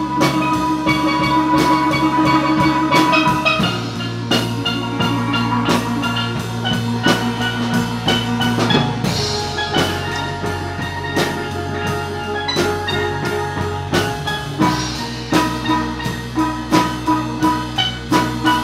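Live steel band playing: steel pans carry the melody over drum-kit beats, with low bass notes changing every few seconds.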